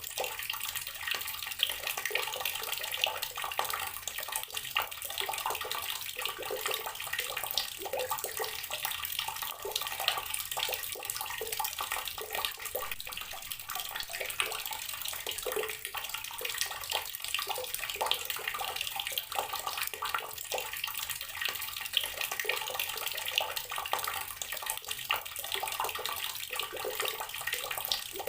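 Water from a running tap pouring and splashing into a container of water, a steady dense trickle.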